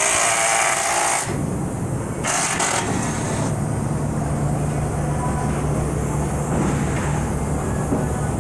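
Factory machinery running with a steady low hum, broken by a loud burst of hissing about a second long at the start and a fainter hiss about two seconds later.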